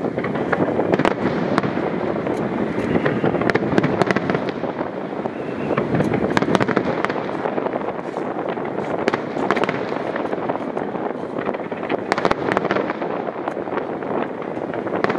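Fireworks display: a dense, continuous wash of many shell bursts, with sharp pops and crackles scattered throughout.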